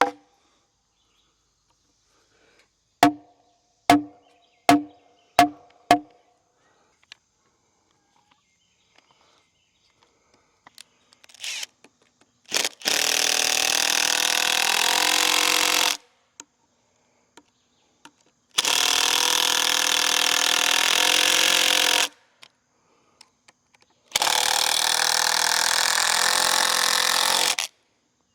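Six sharp hammer taps with a short ringing tone, five of them in quick succession, then a cordless power drill/driver running three times for about three and a half seconds each, driving screws to fasten a freshly set beam.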